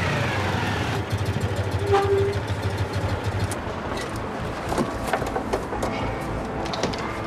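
Citroën 2CV driving through city traffic, its small engine running steadily amid street noise, with a short tone about two seconds in.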